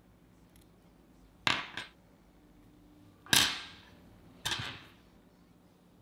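Three sharp clicks from small fingerboard truck parts and tweezers being handled during assembly. The middle click is the loudest, and the first and last are each doubled.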